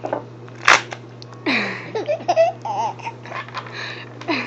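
A single sharp hiccup, followed by a baby's breathy laugh and high-pitched squealing babble.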